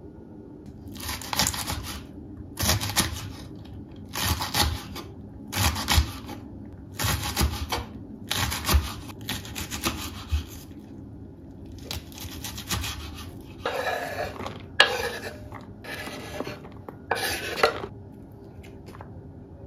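Knife slicing green onions on a wooden cutting board, in short bursts of quick strokes about every second and a half. Near the end come a few fuller scraping bursts.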